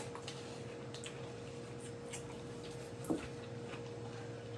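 Faint chewing of food, with small scattered clicks and one short louder mouth sound about three seconds in, over a steady electrical hum.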